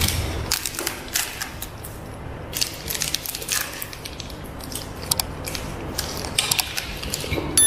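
Plastic wrapper on a peanut and sesame sweet bar crinkling and crackling in irregular bursts as it is unwrapped by hand. A short, bright chime starts right at the end and is the loudest sound.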